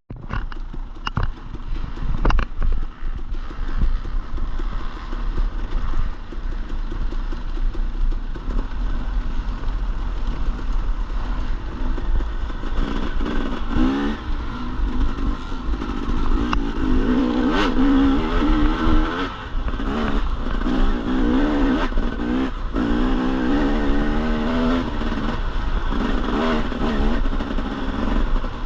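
Dirt bike engine running under riding load, its revs rising and falling again and again, most plainly in the second half.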